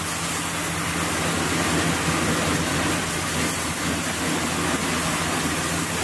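Steady workshop background noise: an even hiss with a low hum underneath and no distinct tool strikes.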